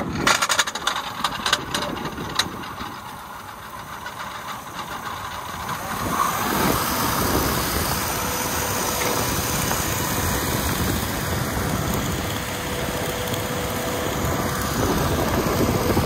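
A vehicle engine running, with a cluster of rattling knocks in the first couple of seconds; the running noise grows louder about six seconds in and then holds steady.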